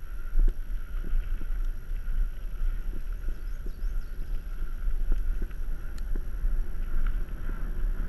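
Mountain bike rolling down dry dirt singletrack, with wind buffeting the bike-mounted camera's microphone as a steady low rumble and small scattered knocks and rattles as the bike goes over the trail.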